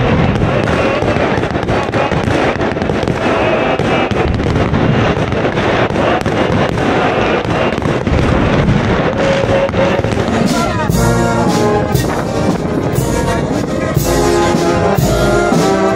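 Fireworks bursting and crackling continuously in dense, rapid cracks. About ten seconds in they give way to a brass band playing held chords.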